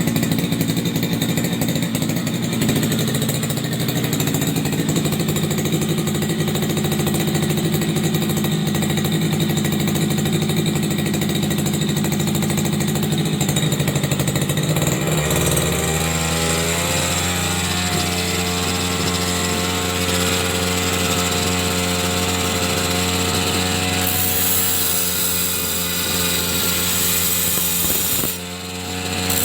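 A small motor-driven machine running steadily. Its pitch shifts lower about halfway through and holds there, with a brief dip near the end.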